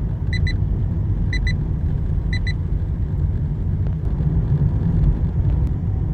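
Speed-alert alarm sounding in pairs of short high beeps, about one pair a second, three pairs near the start, over the steady low road and engine rumble of a 2000 Toyota Camry 2.2 heard from inside the cabin. The beeps are the overspeed warning that the car has passed the set alert speed.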